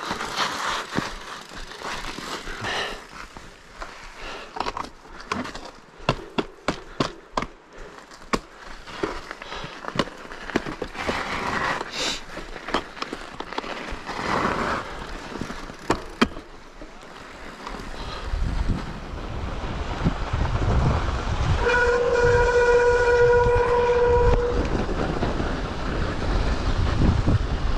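Mountain bike riding downhill over a snowy, icy track: sharp rattles and clicks from the bike for the first part. Then wind rushes over the microphone as the ride speeds up, and a steady pitched squeal sounds for about three seconds in the middle of it.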